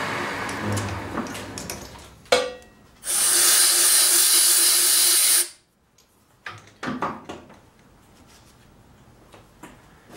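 Metal lathe spindle running down after a finishing boring pass, its hum fading over the first two seconds. Then a sharp click and a loud hiss lasting about two and a half seconds that cuts off suddenly, followed by a few light knocks.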